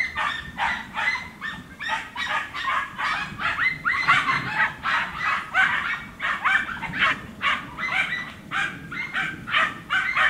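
Andalusian podencos yelping and baying in quick, overlapping high-pitched barks, several a second, as the hounds give tongue while hunting a rabbit in the brush.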